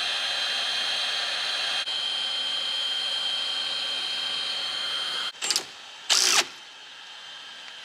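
Cordless heat gun blowing steadily with a thin, high whine over its fan noise while it shrinks heat-shrink crimp connectors on wiring. It cuts off suddenly about five seconds in, and two short, loud noises follow.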